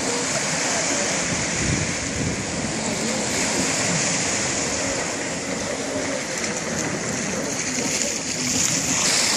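Steady hiss of small waves washing on the shore, with the faint drone of a Yamaha VX110 Sport WaveRunner jet ski's engine as it speeds away across the water.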